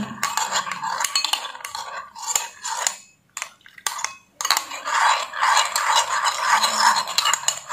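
Metal spoon stirring a shampoo-and-water mix in a glass bowl, scraping and clinking against the glass. It stops briefly about three seconds in, then resumes with denser, steadier scraping.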